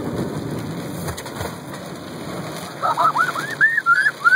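Steady rain and road noise inside a car driving through heavy rain, with water washing over the windshield at the start. About three seconds in, a child gives a quick string of high, rising-and-falling hoots and squeals, in play.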